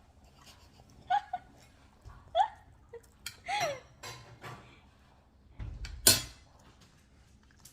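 Light clinks and knocks of dishes and utensils at a meal, with one sharper knock about six seconds in. A few short, soft vocal sounds come in the first few seconds.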